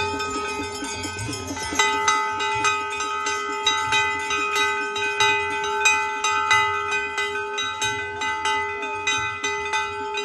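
A metal temple bell struck rapidly and repeatedly, about three strokes a second, its ringing tones overlapping into a continuous clang, with a low regular beat beneath. The ringing breaks off briefly near the start and resumes.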